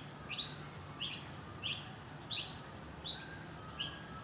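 A small bird calling in a series of short, sharp chirps, each one falling in pitch, about seven in a row at a steady pace.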